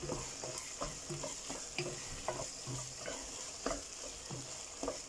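Wooden spatula stirring rice and mashed pumpkin in a nonstick pot, scraping and knocking against the pot about two to three times a second, over a light steady sizzle as the rice cooks in the hot pot.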